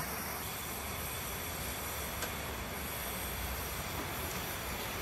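Oxy-acetylene welding torch flame hissing steadily while a steel patch is welded into a car engine's oil pan with filler wire.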